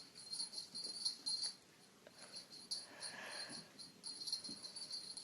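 Faint, intermittent high jingling, like a small bell or metal tags, while a dog plays, with a short breathy huff about three seconds in.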